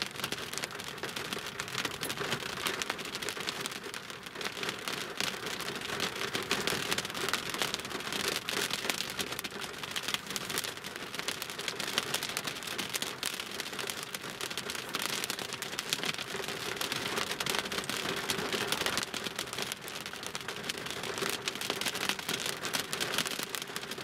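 Rain pattering on a car's windshield and roof, heard from inside the car: a dense, steady patter of many drops.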